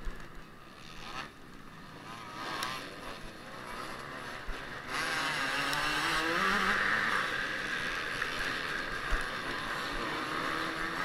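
Motocross bike engine heard from a camera mounted on the bike while racing. It is quieter for the first few seconds, then about five seconds in it gets louder and the pitch climbs as the throttle opens, holding at high revs.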